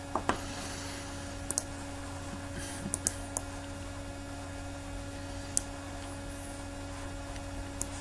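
About nine short, sharp clicks from someone working a computer's keys and mouse, scattered irregularly, a few in quick pairs, over a steady low electrical hum.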